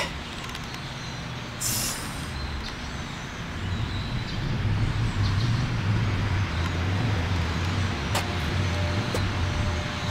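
A vehicle engine rumbling low and steady, getting louder from about four seconds in, with a short sharp hiss just under two seconds in.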